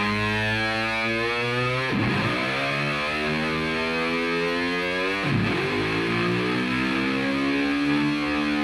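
Background music: a distorted electric guitar playing long notes, with two sharp downward dives in pitch.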